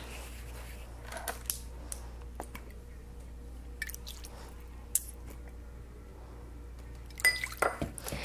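Faint pouring of white wine vinegar from a bottle into a metal measuring spoon over a mixing bowl, with scattered small clicks of spoon and bottle over a low steady hum. A short run of louder knocks comes near the end.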